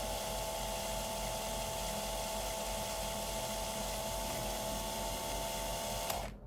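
Small handheld electric drill with a micro drill bit running in a steady whine while drilling a stitching hole in a drone's plastic arm; it stops suddenly near the end.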